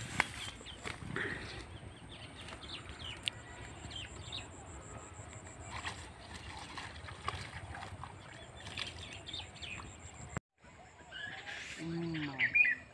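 Scattered small-bird chirps over a low steady outdoor hiss, with a couple of sharp clicks in the first few seconds. After a brief break near the end, there is a short voice-like call with a falling pitch, and the chirps get louder.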